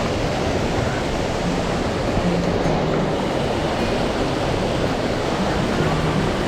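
Mountain stream rushing steadily over rocks: a constant loud hiss of flowing water with no break.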